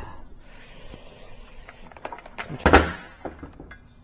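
Handling sounds on a workbench while an electric pressure washer is worked on: low rustling and one sharp clunk about two and a half seconds in.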